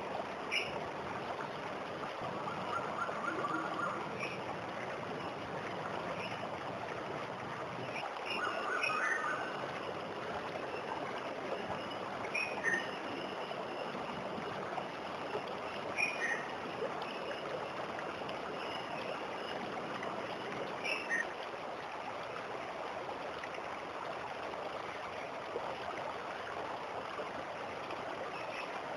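Waterfall water rushing and splashing steadily, with birds giving short high chirps every few seconds.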